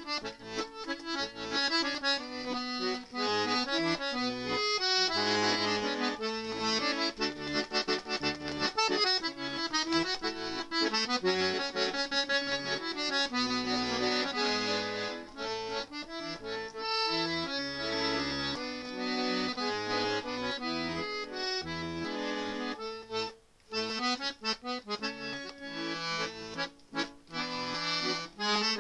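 Accordion music: a tune played on the accordion, melody over low bass notes, with a brief pause about three-quarters of the way through.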